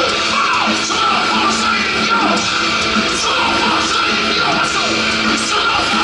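Heavy metal band playing live, with electric guitars and drums and shouted vocals.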